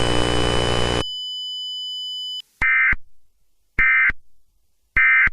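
Emergency Alert System end-of-message signal: three short, identical digital data bursts about a second apart, marking the end of the alert. Before them, a steady electronic drone cuts off about a second in, leaving a quieter steady tone that stops just before the first burst.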